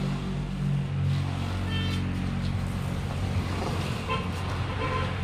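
An engine running steadily with a low hum.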